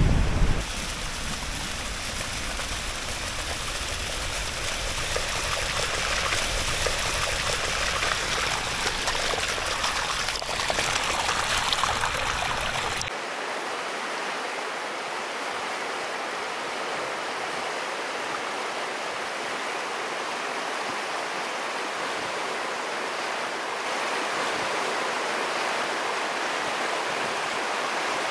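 Glacial meltwater river running fast: a steady noise of rushing water, with a low rumble under it that drops away suddenly about thirteen seconds in.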